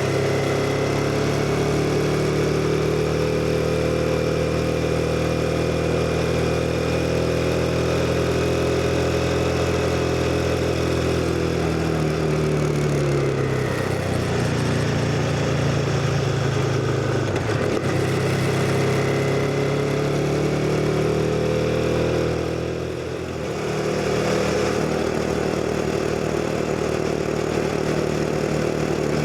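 CF Moto 250NK motorcycle's single-cylinder engine running on the move, its pitch sinking and climbing several times as the throttle and gears change, with a short easing off a little over two-thirds through.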